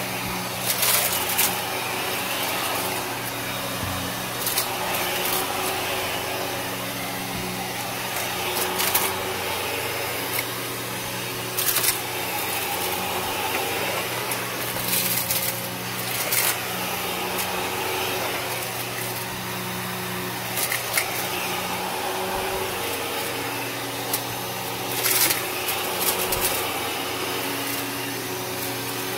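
Kenmore upright vacuum cleaner running steadily on carpet, with brief crunching crackles every few seconds as it sucks up debris from the pile.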